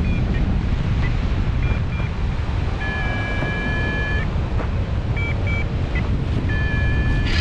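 Strong wind rushing over the microphone, with several short electronic beeps and one longer held beep about three seconds in.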